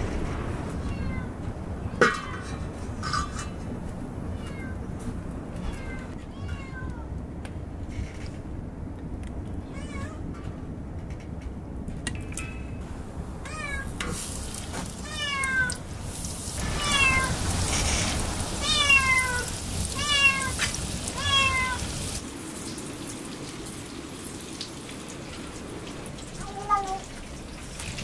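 A cat meowing over and over in short calls, faint at first, then louder and about one a second for several seconds in the middle, over the crackle of a wood fire.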